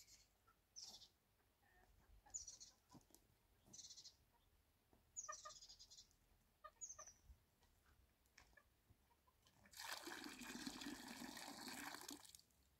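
Poultry giving short, high chirps a few times, then water poured into a vessel for about two seconds near the end.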